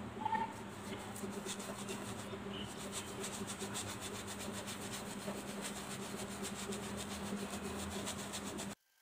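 Flat bristle brush rubbing back and forth over silver leaf on canvas, a steady dry scratchy brushing that works the loose excess leaf away from the glued lettering. A low steady hum runs underneath, and the sound cuts off abruptly near the end.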